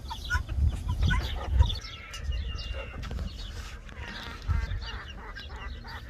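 Free-ranging chickens clucking and calling: many short, quick notes, with a longer drawn-out call about two seconds in.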